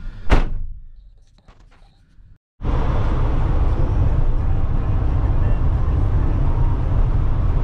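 A sharp thump, then after a short lull, steady engine and road noise inside the cab of a U-Haul moving truck cruising on the highway.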